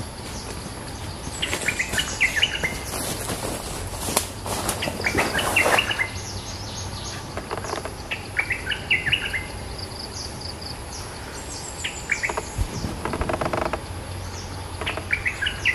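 Bulbul singing: short, quick bubbly phrases, repeated about every three to four seconds, with thin high chirps from other birds between them.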